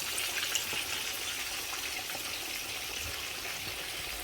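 Tomato sauce frying in a pot, a steady sizzling hiss with a few faint crackles.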